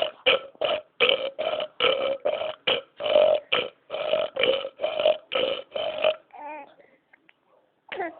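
A rapid string of deliberate human burps, about seventeen short belches in six seconds, followed by a brief wavering vocal sound.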